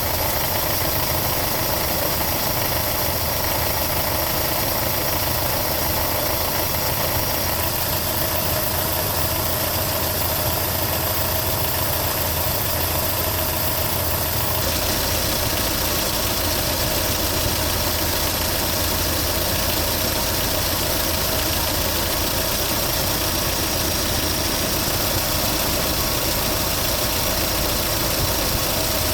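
1982 Mazda B2000 pickup's four-cylinder engine idling steadily, its EGR valve repaired so it no longer hangs open at idle.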